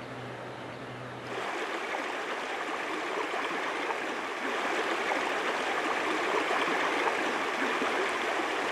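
Shallow river water running over rocky riffles: a steady rushing hiss that steps up louder about a second in.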